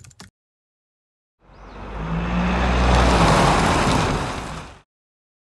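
A car driving past, engine hum and tyre noise swelling up and fading away over about three seconds, a pass-by sound effect.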